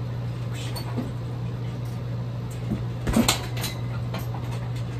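A heavy punching bag struck by a kick: a short cluster of knocks and rattles about three seconds in, over a steady low hum.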